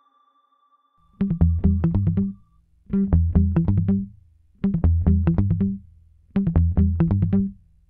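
Background music: after about a second of quiet, four short phrases of quick, sharp-edged notes over a deep bass line, each lasting a little over a second, with brief pauses between them.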